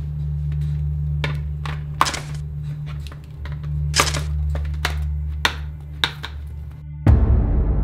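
Spring-loaded cable clamps being clipped onto a metal helmet, about eight sharp metallic clicks and clanks over a steady low hum. Near the end a loud, low swell of music comes in.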